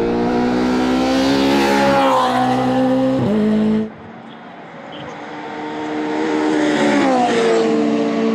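Subaru BRZ SP3 race car's two-litre flat-four boxer engine running at speed as the car passes, its pitch dropping as it goes by. The sound cuts off suddenly about four seconds in, then the engine grows louder again as the car approaches and passes, its pitch falling near the end.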